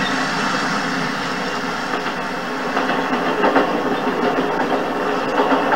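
A car driving along a street, with steady engine and road noise.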